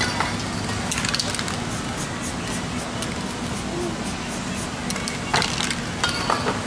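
Aerosol spray paint can hissing in several short bursts, about a second in and twice near the end, over a steady low hum.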